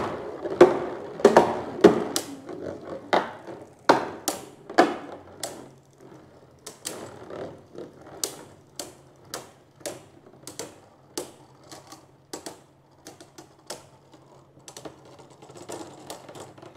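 Two Flame-brand Beyblade spinning tops battling in a plastic stadium: a quick run of sharp clacks as they hit each other and the bowl, thinning to scattered clicks, then a short cluster near the end as they grind together in the centre.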